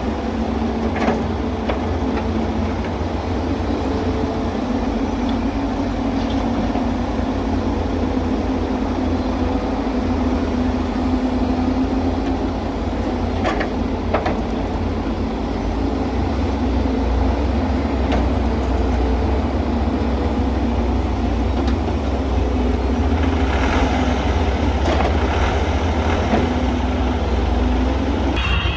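Wheeled excavator's diesel engine running steadily under work, with a few sharp clanks and knocks.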